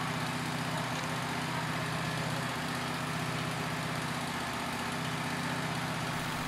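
Wood-Mizer LT15 portable band sawmill's 19-horsepower engine idling steadily, the blade not cutting.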